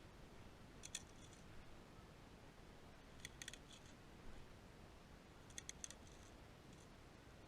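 Faint, sharp clicks in small clusters of two to four: one about a second in, another about three and a half seconds in, and a third near six seconds, over quiet background hiss.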